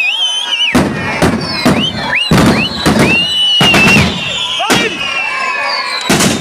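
Fireworks going off in an irregular string of about ten sharp bangs, starting about three-quarters of a second in. High whistling tones glide up and down between the bangs.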